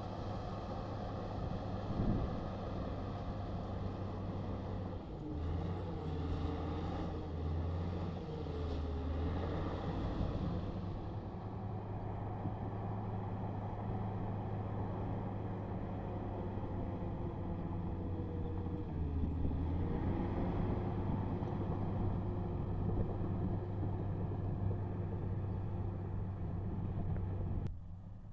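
Komatsu D65P crawler bulldozer's diesel engine running steadily under work, with a tone that rises and falls in pitch as the load and revs change. The sound drops away sharply near the end.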